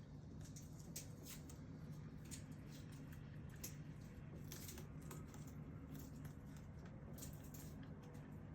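Faint room tone: a steady low hum with scattered soft ticks and clicks.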